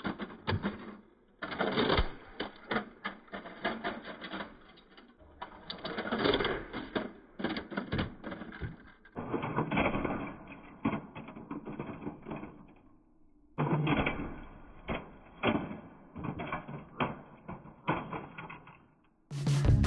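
Slowed-down clatter of a diecast metal model Toyota Highlander crashing into a concrete block, with crumbs of concrete falling: a dense run of clicks and knocks, broken into several replays by short silent gaps.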